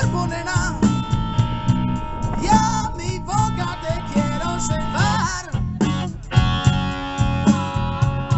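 Live blues band playing, with a lead guitar's bent, wavering notes over a steady beat.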